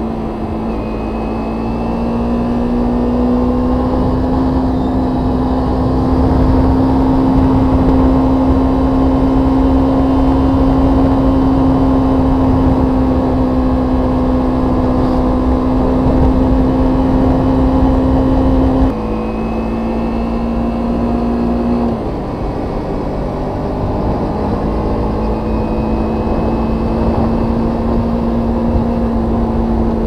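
2015 Kawasaki Ninja 250's parallel-twin engine running at a steady cruising note. About two-thirds through, the sound suddenly drops in level and pitch, then settles a few seconds later into a slightly lower steady note.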